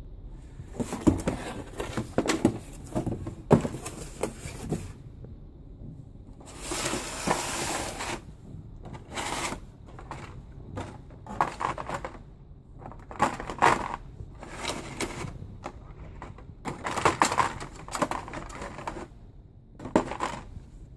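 Unboxing handling: a cardboard box and a moulded plastic packaging tray being handled, with irregular clicks, knocks and rattles. About seven seconds in comes a longer scraping rush, like the lid sliding off the box.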